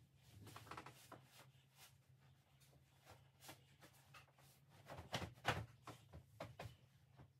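Scattered light knocks and rustles of household things being handled while a bedroom is tidied, with a cluster of louder knocks about five seconds in, over a steady low hum.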